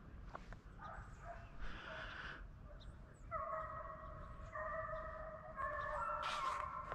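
A pack of deer hounds baying on a chase: several long, drawn-out howls overlap, fuller and nearly unbroken in the second half. A short rush of noise comes near the end.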